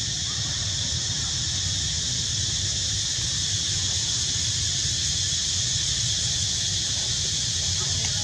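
Steady, high-pitched drone of insects in the trees, unbroken throughout, over a low steady rumble.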